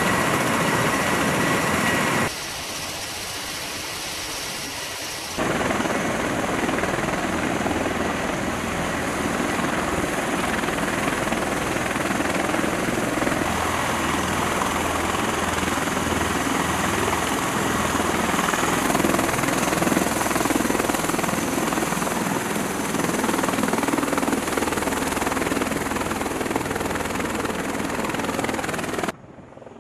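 MV-22B Osprey tiltrotors and CH-53E helicopters running on the ramp with rotors turning: a steady, dense rotor and turbine noise, with a high turbine whine over it at the start. A couple of seconds in, the sound drops noticeably quieter for about three seconds, then comes back at full level.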